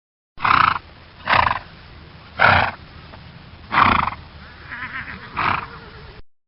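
An animal calling five times in short, loud calls spaced about a second or so apart.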